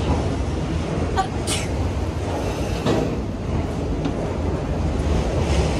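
Long freight train rolling past: a steady low rumble of wheels on rails, with a couple of brief higher-pitched sounds a little over a second in.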